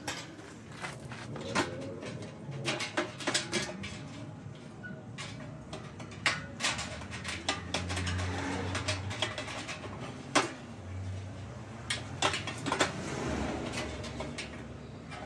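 Irregular metallic clicks, clinks and knocks as a steel hinge is handled and pressed against a stainless steel washing-machine drum.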